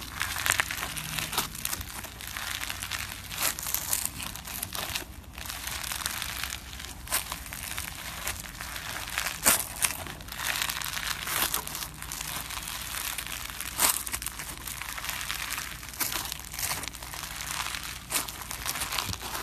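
Pink slime full of small beads being kneaded, pressed and stretched by hand, crackling and crunching steadily with sharp pops now and then.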